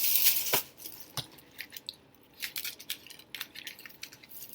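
Paper packaging of a fast-food apple pie rustling and crinkling loudly for the first half second, then scattered light clicks and taps as the pie is handled.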